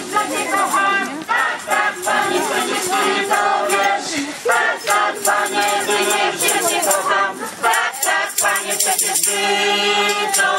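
A song sung by a group of voices over a steady shaking rattle rhythm, with a held chord near the end.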